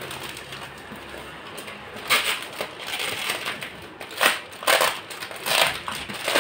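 Clear plastic packaging crinkling and rustling as it is handled and opened, quieter at first, then a run of loud crackly bursts from about two seconds in.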